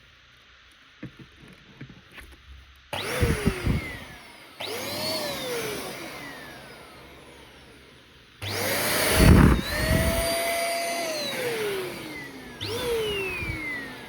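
Silvercrest 2-in-1 vacuum cleaner's motor switched on four times in quick succession, each time spinning up to a whine that then slides down in pitch as it winds down. A few small handling clicks come before the first start.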